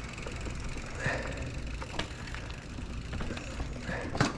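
Mountain bike rolling over a rocky trail: a steady low rumble with a few sharp knocks and rattles, the strongest about four seconds in.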